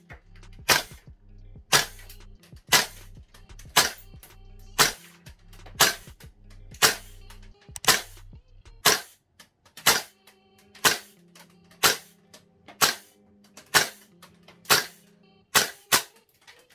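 VFC HK416 A5 gas blowback airsoft rifle firing single shots, about one a second, each a sharp crack of the shot and the bolt cycling. Near the end two shots come close together as the magazine runs empty.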